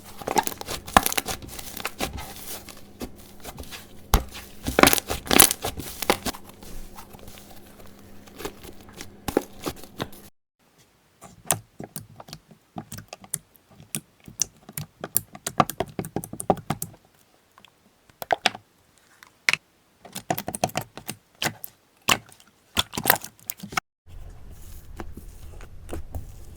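Slime being handled by hand: squeezed, stretched and poked, giving dense runs of crackling, clicking and tearing sounds. The character of the sound changes twice as one clip gives way to another.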